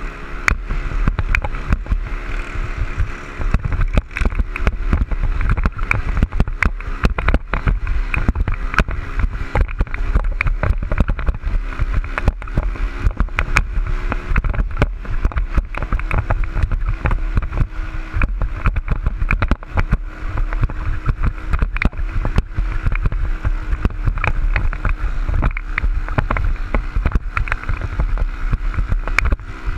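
Dirt bike engine running steadily under way, heard from a helmet-mounted camera, with wind buffeting and crackling on the microphone throughout.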